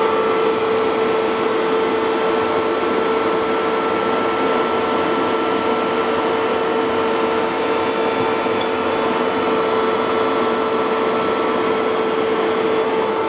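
Bissell PowerBrush upright carpet shampooer running steadily over carpet: a loud, unchanging motor whine over a rushing suction noise.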